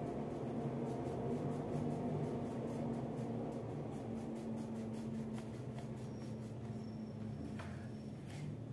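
Crayon rubbing on paper in quick, evenly repeated strokes as a child colors in, over a steady low hum; the strokes thin out after about five seconds.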